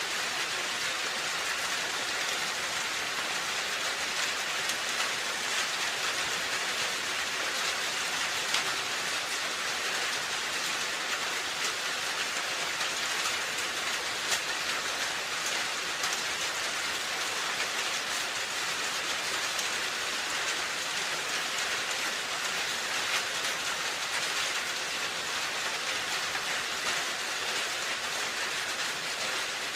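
Steady rain falling on a roof: an even hiss with scattered drop ticks, a couple of them a little louder.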